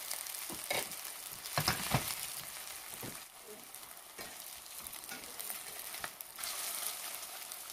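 Cauliflower patties sizzling as they shallow-fry in oil in a stainless steel frying pan, with a few clinks and scrapes of a metal spatula and spoon against the pan, loudest about two seconds in. The sizzle eases for a few seconds midway, then picks up again near the end.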